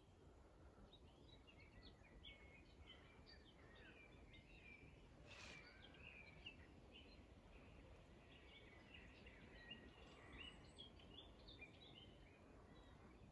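Faint chorus of small songbirds, many short high chirps and trills overlapping, over a low steady background hiss. One brief sharp sound cuts through about five seconds in.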